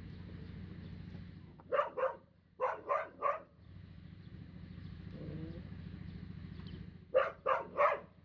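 A dog barking in short runs: two barks, then three, then after a pause three more near the end, over a steady low background noise.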